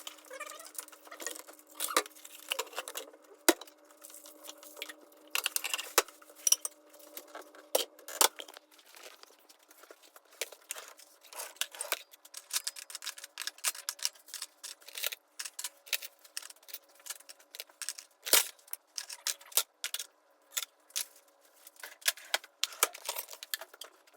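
Irregular light clicks and clinks of small hard objects being handled, over a faint steady hum.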